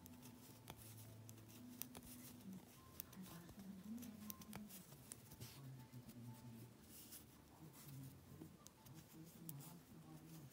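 Faint clicking and rubbing of metal knitting needles working yarn in garter stitch, over near-silent room tone.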